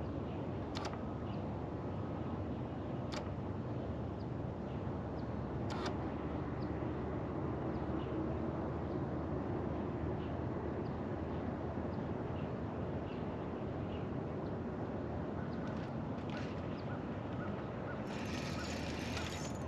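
Steady outdoor background noise on an open boat on the water, with faint scattered bird chirps and a few sharp clicks; about eighteen seconds in, a higher raspy hiss starts.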